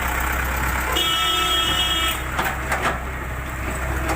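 A vehicle horn sounds once, held for about a second, over the steady low hum of an engine running; a few sharp knocks follow.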